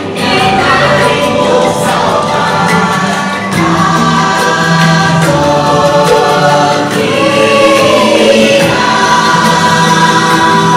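Choir singing over music in long held notes, with one voice gliding up and back down about seven seconds in.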